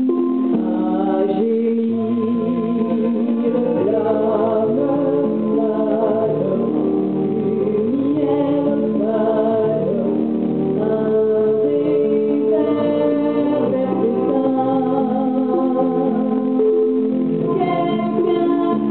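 A woman singing a slow ballad solo, holding long notes with vibrato, over instrumental accompaniment.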